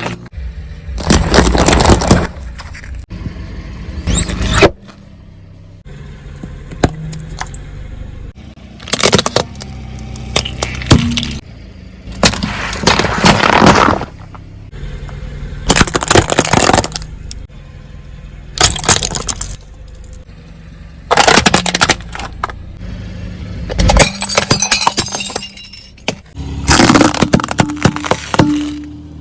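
Car tyres rolling over and crushing objects. About nine separate bursts of crunching, cracking and breaking come a few seconds apart, with a low rumble between them.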